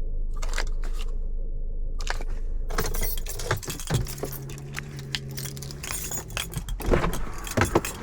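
Close metallic jangling and clicking, like keys or gear moving right against the microphone, over street noise. A low steady tone, such as a vehicle engine, sounds for a couple of seconds midway.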